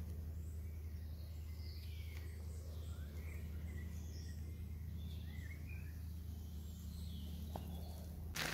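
Scattered songbird chirps and short calls over a steady low hum, with a sharp knock right at the end.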